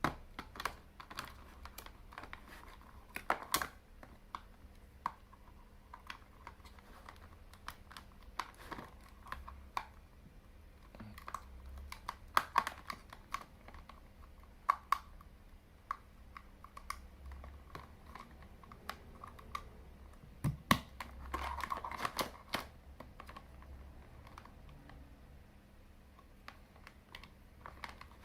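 Irregular light clicks and taps of small hard parts being handled and fitted by hand, with a few louder knocks, over a faint low hum.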